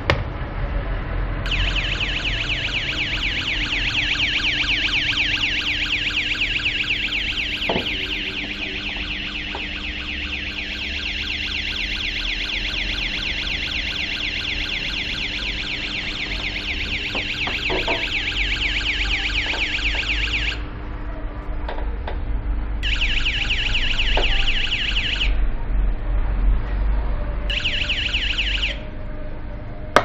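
Electronic siren of a homemade door burglar alarm, played through a small loudspeaker: a fast, high warbling tone set off by opening the door. It sounds for about twenty seconds, stops, then comes back twice in short bursts near the end.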